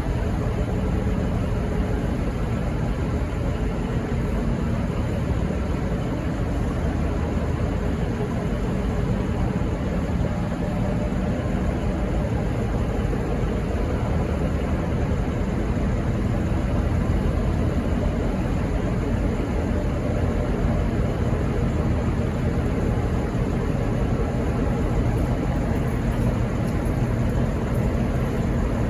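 SSR P-class diesel-electric locomotive P17 idling while stopped at a signal, a steady low engine drone that does not change.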